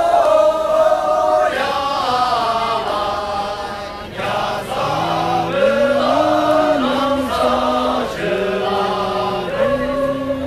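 A group of Sherpa dancers sings a sherbu dance song together in long held notes that step from one pitch to the next. Lower voices join in about halfway through.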